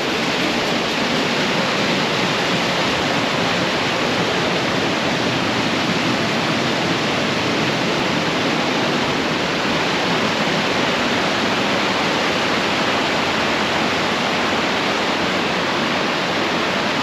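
A large waterfall crashing down: a steady, loud rush of falling water that does not let up.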